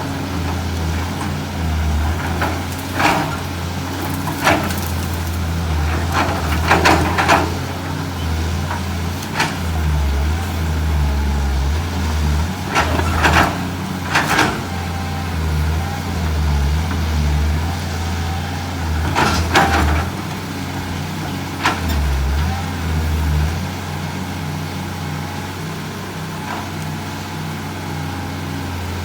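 Excavator's diesel engine running under load, with sharp cracks and knocks several times over as it pries out eucalyptus stumps. It settles to a quieter steady running near the end.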